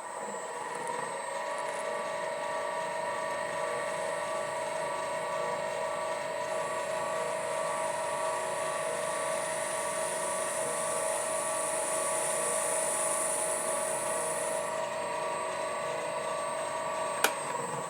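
A small metal lathe runs with a steady whine while facing the end of a small turned steel cap to remove the stub left from parting off. A higher cutting hiss comes from about six to fifteen seconds in, and there is one sharp click near the end.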